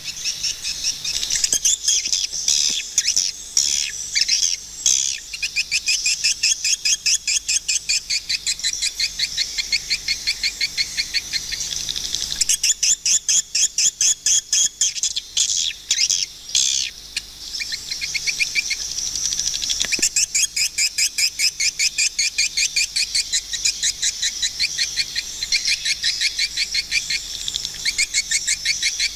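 Swiftlets twittering: dense trains of rapid, high chirps, many each second, overlapping in a continuous chorus.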